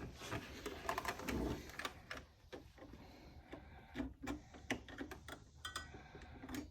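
Irregular small metallic clicks and scrapes of a flathead screwdriver prying at the metal contact spring in the plastic battery compartment of a Kawasaki Sax-A-Boom, with a brief light ring about two-thirds of the way through.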